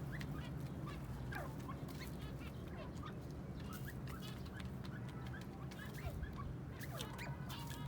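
Teetar (francolins) and other birds calling: many short chirps, clicks and quick up- and down-sweeping whistles scattered throughout. A steady low hum runs underneath.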